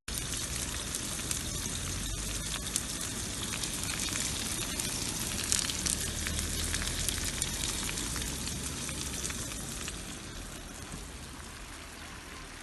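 Slices of sucuk sizzling and crackling in hot oil in a frying pan, a dense steady sizzle with sharp pops that starts abruptly and eases off a little near the end.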